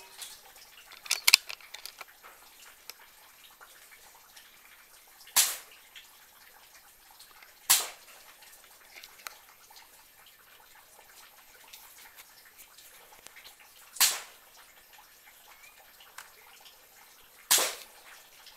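PCP air rifle firing four single shots several seconds apart, each a short sharp crack, with a quick pair of smaller clicks about a second in.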